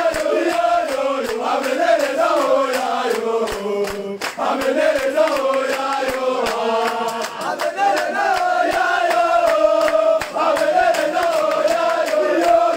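A group of voices chanting a celebratory song together, one melody sung in unison, over a fast, sharp, regular beat.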